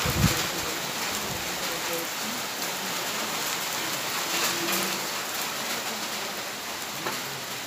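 Steady rain falling on wet concrete paving, with a brief low thump just after the start.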